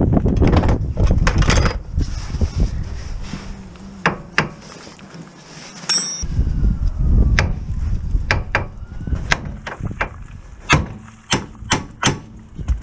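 A series of irregular sharp knocks and clinks from work on the car, over a low rumbling noise that drops away briefly near the middle.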